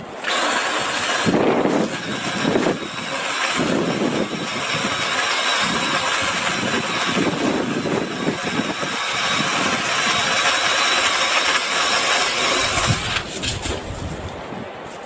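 BLACK+DECKER 18V cordless multi-tool saw running and cutting through a tree branch, a steady high whine that starts suddenly and stops about 13 seconds in.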